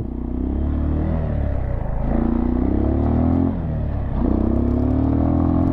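Dirt bike engine pulling hard through the gears: its pitch climbs, drops at a gear change about three and a half seconds in, then climbs again.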